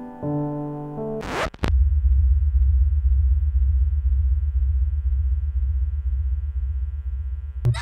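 Electronic background music: electric piano chords that break off about a second in with a quick whoosh, then a loud synthesizer drone with a pulsing low bass under steady held tones.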